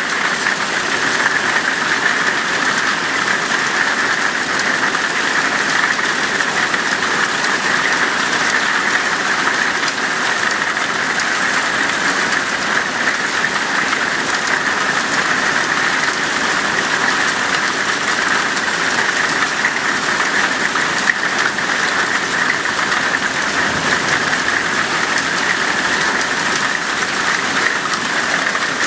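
Heavy hail falling steadily: a dense patter of hailstones striking the ground and patio surfaces with no let-up.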